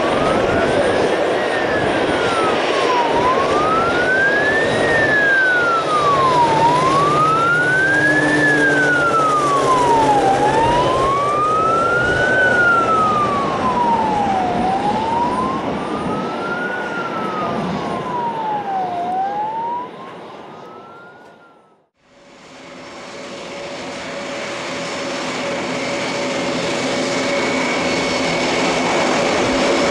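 A wailing siren rising and falling about every three and a half seconds over the broad noise of an aircraft engine, fading out about twenty seconds in. After a short break, an Air Tractor AT-802's turboprop engine runs steadily with a whine.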